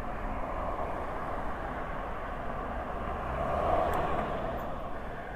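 Road traffic noise, with one vehicle passing by and swelling loudest at about three and a half seconds.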